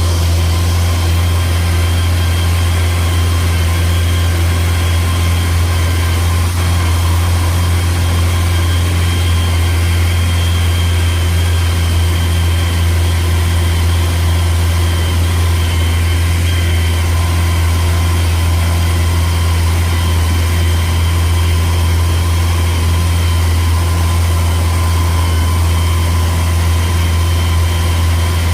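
Diesel engine of rice-field harvest machinery running steadily, a deep, unchanging hum with faint steady tones above it.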